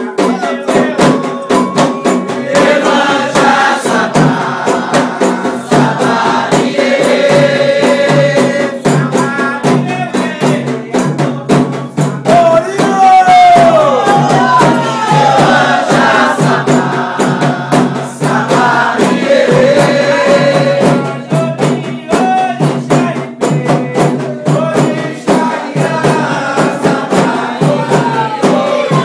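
Candomblé religious music: voices singing a chant over fast, steady percussion with rattles and shakers.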